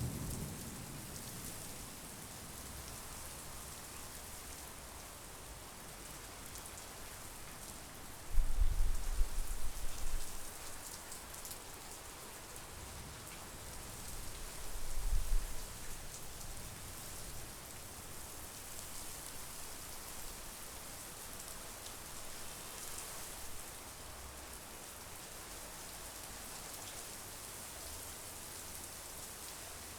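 Steady monsoon rain falling, an even hiss of drops. Two loud, very low rumbles break in, about eight seconds in and again near the middle, each lasting a second or two.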